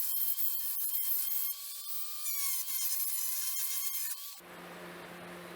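High-speed rotary carving tool whining steadily as its burr grinds into a metal sword guard, with a hiss and scattered clicks. It stops abruptly about four seconds in, leaving a low steady hum.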